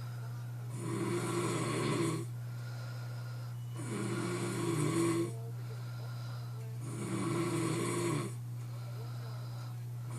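A man snoring in his sleep: three snores about three seconds apart, each lasting a little over a second, over a steady low hum.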